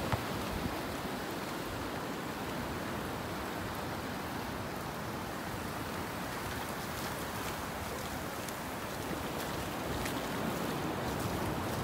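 Ocean surf breaking and washing up a sandy beach: a steady rush of water, with faint crackling fizz in the second half.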